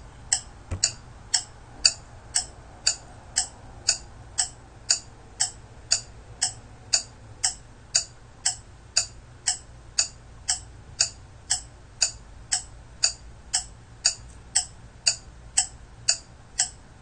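Ticking clock sound effect of a countdown timer, sharp even ticks at about two a second.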